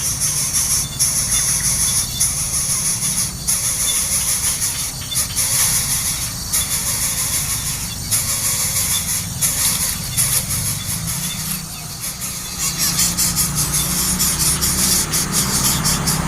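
Nestling birds giving rapid, high-pitched squealing begging calls, louder and more rapid near the end.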